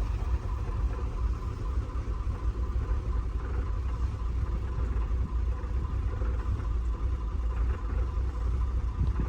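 Range Rover supercharged engine idling steadily with a low, uneven rumble. The engine has a misfire that the returning fuel and cam fault codes point to.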